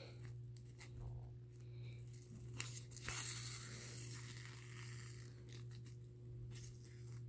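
Faint rustling and crinkling of thin nylon inflatable fabric as it is hand-stitched, the needle and thread drawn through the material, with a few light clicks and a steady low hum underneath.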